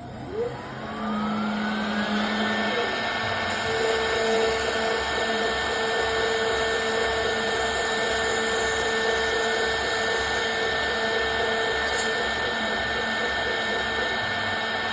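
Custom CNC machine's spindle motor starting up, its whine rising in pitch over about two seconds, then running steadily at speed with a constant high whine.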